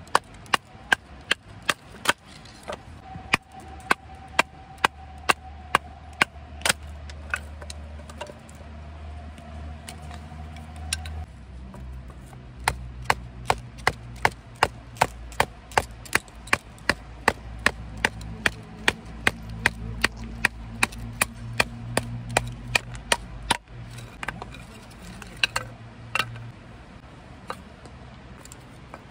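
Batoning firewood: a wooden baton striking the spine of a Mora knife to drive it down through a split of wood, in a steady run of sharp knocks about two a second. The knocking breaks off briefly about a third of the way in, resumes, and thins to a few scattered strikes near the end.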